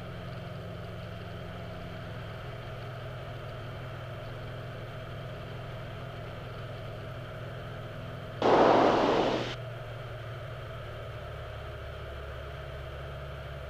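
Steady drone of a Cessna 182 Skylane's piston engine and propeller, heard from inside the cockpit. About eight seconds in comes a single burst of hiss lasting about a second.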